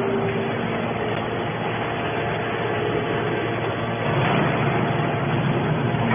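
Steady machine noise of a hydraulic scrap-metal baler line running, with faint steady tones in the din and a little louder from about four seconds in.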